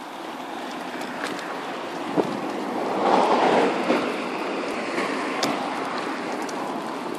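Pram wheels rolling over tarmac: a steady rushing rumble with a few light clicks and knocks, swelling louder for about a second roughly three seconds in.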